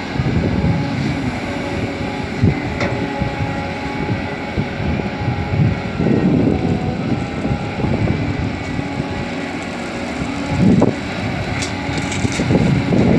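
Heavy diesel machinery at a loading site, an excavator and a dump truck, running steadily, with gusts of wind on the microphone.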